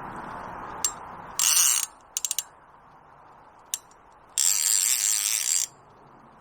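Ratchet of a Cyprinus Monarch centrepin reel clicking as the drum turns during the playing of a fish: a single click, a short rattling run, three quick clicks, another single click, then a longer run of over a second near the end.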